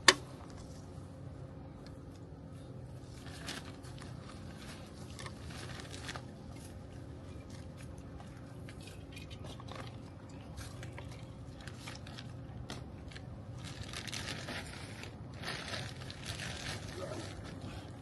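Hands working with potted plants and soil: scattered crunching, scraping and crinkling, busier near the end, with one sharp knock right at the start.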